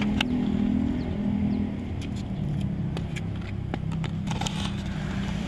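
An engine running steadily, its pitch stepping slightly up and down, with scattered light clicks.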